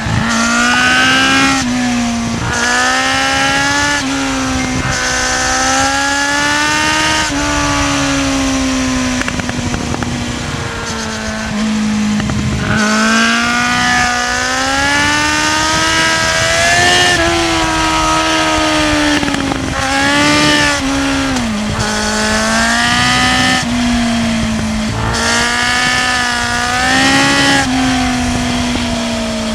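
Kawasaki Z750's inline-four engine under way. Its pitch climbs under throttle and drops sharply at each gear change, several times over.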